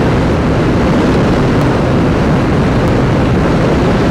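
TVS NTORQ 125 XT scooter running flat out at about 92 to 94 km/h, near its top speed: a steady rush of wind and engine noise from its single-cylinder engine, heard from the handlebar.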